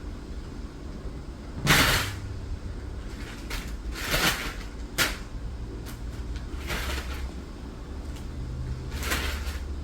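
A plastic sheet crinkling and rustling in about five short bursts as a cat plays with it, the first the loudest.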